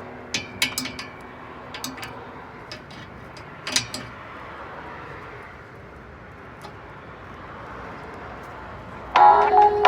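Scattered clicks and knocks over a steady background hiss, mostly in the first few seconds, then music starts near the end.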